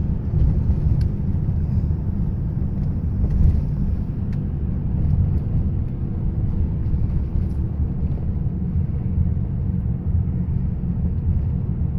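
Steady low rumble of a car heard from inside the cabin while it is driving, with a few faint small clicks.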